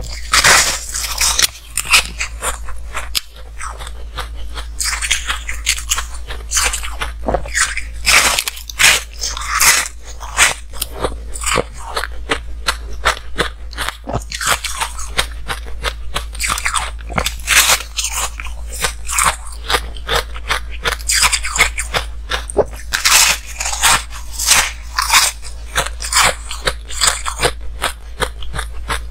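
Ice being bitten and chewed close to a clip-on microphone: clusters of sharp crunches, the hard frosted ice cracking between the teeth, with short gaps between bites.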